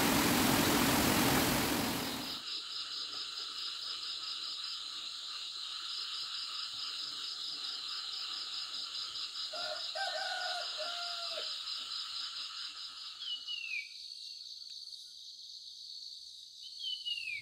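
Steady, pulsing chorus of insects, with a brief lower animal call about ten seconds in and two short falling chirps near the end. The first two seconds are a loud, even rushing noise that cuts off abruptly.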